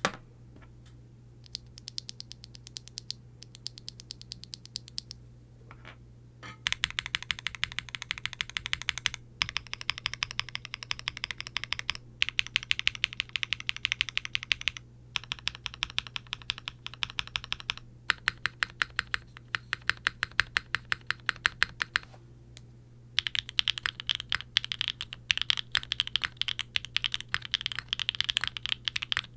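Typing on a Qwertykeys QK60 R3 mechanical keyboard with Gateron Ghost linear switches (POM housing and stem), a POM plate, GMK doubleshot ABS keycaps and no case foam. The keystrokes start slow and scattered, then run fast and continuous with a few short pauses.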